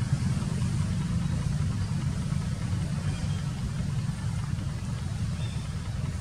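A steady low rumble, with a couple of faint short high tones about three and five and a half seconds in.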